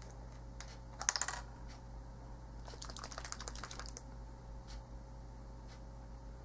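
Quiet clicking and rattling of small hardware and tools being handled: a quick cluster of clicks about a second in, then a longer run of faint ticks around three seconds in.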